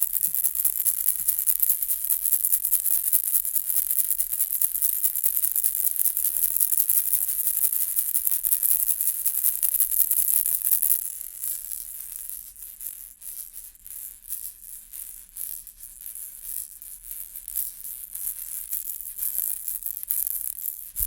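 Baby ball rattle shaken, a dense high rattling of loose beads. About eleven seconds in it turns quieter and sparser, as separate shakes.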